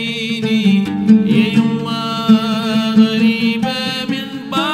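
Oud being plucked in an Iraqi song, under a long held melody line with a wavering vibrato.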